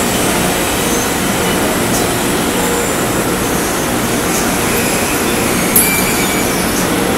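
Steady, loud mechanical din of a ceramic tile glazing line: belt conveyors and screen-printing machines running together. A single short click comes near the end.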